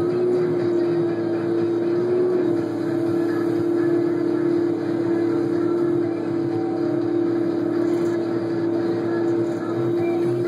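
Caterpillar 559 knuckleboom log loader running and working its boom, heard from inside the operator's cab: a steady engine drone with a constant mid-pitched whine over it.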